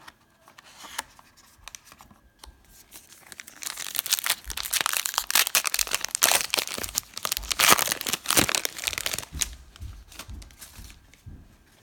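A trading-card pack wrapper being torn open and crinkled in the hands. The crackling starts a few seconds in, stays loud for several seconds, then dies down near the end.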